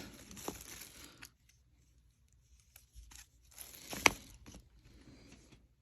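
Rustling of fireworks packaging as it is handled, with a sharp click about four seconds in.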